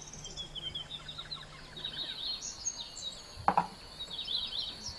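Outdoor ambience: small birds chirping in repeated short bursts over a steady high insect drone, with one short, sharp sound about three and a half seconds in.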